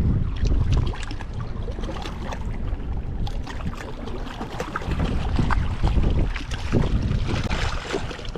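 Strong wind buffeting the microphone in an uneven low rumble, with scattered short clicks and rustles.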